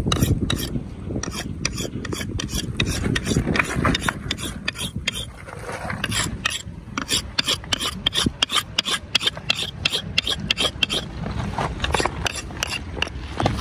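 Steel blade of a large curved knife being sharpened on a river stone: quick repeated scraping strokes of metal across rock, a few a second, coming fastest in the middle to later part.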